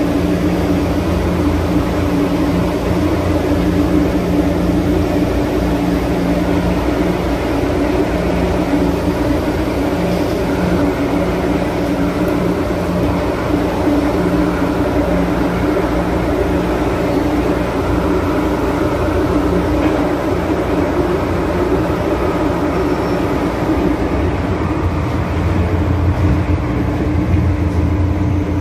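Running noise inside an MTR M-Train subway car: a steady rumble and hiss under a constant electrical hum. Near the end the hiss fades and the low rumble grows as the train slows into a station.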